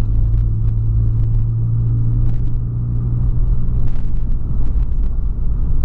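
Volkswagen Polo sedan driving on a wet road, heard from inside the cabin: a steady low engine hum over road rumble, with a few faint ticks.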